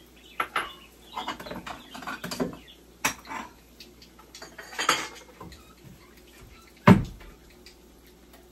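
Dishes and cutlery clinking and knocking as they are handled on a kitchen counter: a string of separate clicks and taps, with one loud clunk about seven seconds in.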